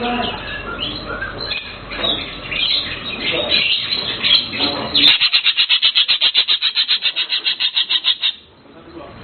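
Cucak keling songbird singing: varied chirps and whistled phrases, then a fast, even trill of about eleven repeated notes a second lasting some three seconds, which stops abruptly.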